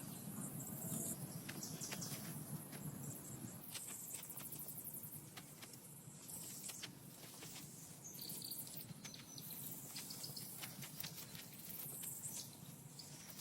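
Faint insect chirring in high bands that come and go, with scattered light clicks and taps.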